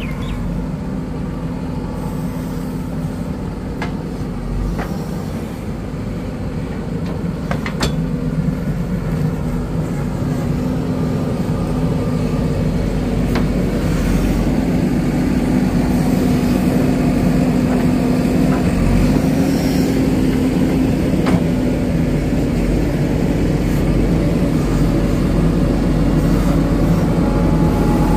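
JCB 3DX backhoe loader's diesel engine running steadily as the backhoe digs and loads soil, growing louder about halfway through. A few short sharp knocks sound from the working arm and bucket.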